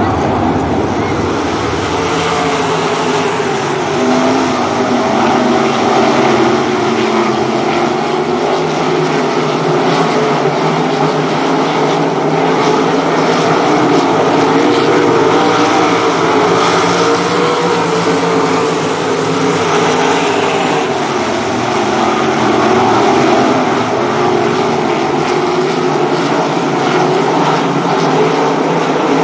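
Pack of winged 305 sprint cars racing, several 305-cubic-inch V8 engines running hard together, their pitch rising and falling as they come off and back into the corners.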